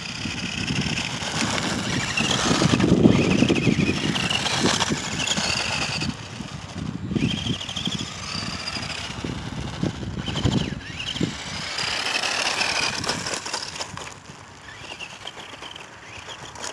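Kyosho Raider 2WD electric RC buggy driving on asphalt: its electric motor and gears whine, rising and falling again and again with the throttle, over the rough noise of its tyres on the pavement.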